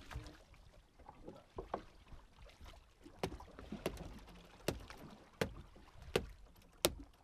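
Low water and hull noise, then from about three seconds in a run of sharp knocks, about one every 0.7 seconds, as a freshly gaffed yellowfin tuna is landed on the small boat.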